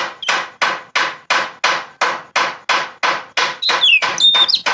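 Oriental magpie-robin singing a fast run of harsh, rasping notes, about three a second, broken near the end by a few clear whistled notes.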